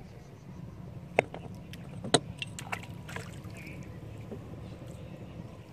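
Wooden canoe being paddled as a gill net is paid out over the side: a low steady rumble of water and wind, with a few sharp knocks and clicks against the hull, the loudest about two seconds in.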